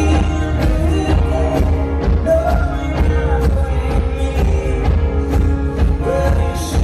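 A live rock band playing at full volume: strummed acoustic guitar, drums and electric bass, with a male lead singer at the microphone.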